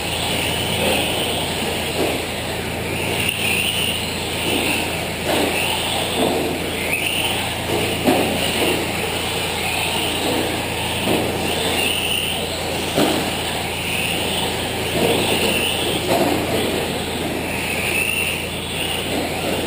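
Several electric 4x4 short course RC trucks racing on a clay track. Their motors whine, rising and falling as they accelerate and brake, over steady tyre and drivetrain noise, with occasional sharp knocks from landings or hits on the track barriers.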